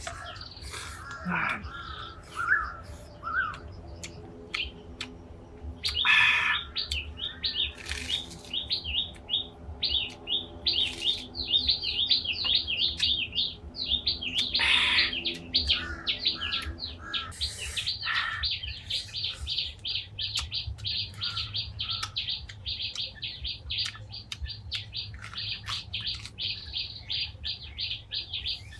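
Small birds chirping in rapid, continuous runs of high notes. A steady low hum runs under them for the first half and stops a little past the middle, with scattered sharp clicks throughout.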